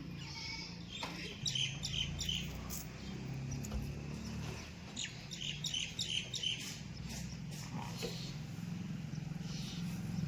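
A diesel engine running steadily at low revs, with runs of short high chirps over it about a second and a half in and again about five seconds in.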